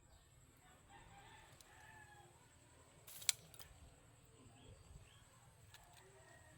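Faint bird calls in the background, with a single sharp click about three seconds in.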